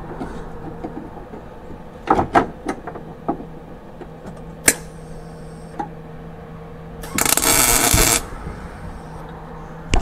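MIG welder arc crackling in one short burst of about a second, a tack or stitch weld on a subframe connector in a 1968 Mustang floor. A few light clicks and knocks come before it, over a steady background hum.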